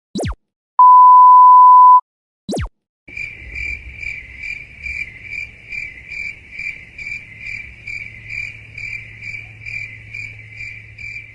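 A row of stock sound effects: a quick falling swish, a loud steady censor beep lasting about a second, another quick falling swish, then cricket chirping at about three chirps a second that runs on through the rest.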